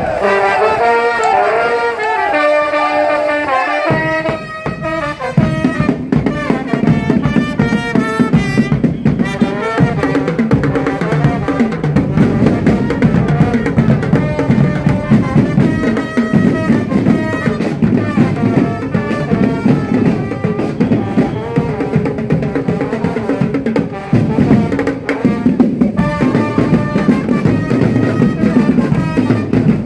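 Brass band playing, trumpets and trombones carrying the melody. About five seconds in, bass drum and snare drums join with a steady driving beat under the horns.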